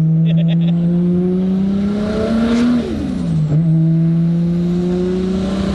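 Nissan Skyline R32 GT-R's single-turbo RB26 straight-six with a straight-pipe exhaust pulling up through the revs. About three seconds in there is a short hiss and a quick drop in pitch as it shifts up, and then it pulls again.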